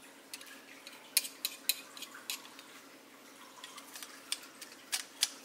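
A knife scraping and tapping crushed garlic off a metal garlic press, giving a string of sharp metallic clicks and taps at irregular intervals.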